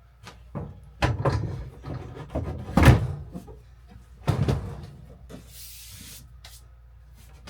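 A run of knocks and clunks as parts are set into a countertop's cut-out holes for a test fit, the loudest about three seconds in, then a brief hiss near six seconds.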